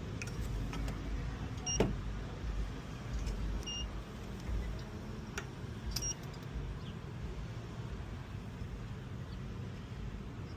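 Three short, high electronic beeps about two seconds apart over a steady low hum, with a few light clicks.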